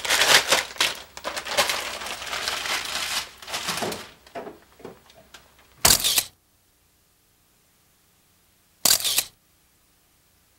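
Rustling and clattering of things being moved in a freezer, fading out about four seconds in. Then a camera shutter fires twice, about three seconds apart.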